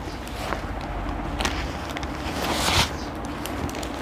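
Plastic shopping bag rustling and crinkling as folded cloth curtains are pulled out of it and handled, with louder rustles about a second and a half in and again near three seconds.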